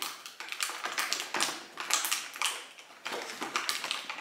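Cardboard advent calendar doors being pried open and torn by hand: irregular crackling, tearing and scraping of thin card, several short bursts a second.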